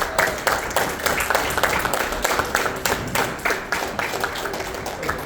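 A group of people clapping their hands in steady, dense applause.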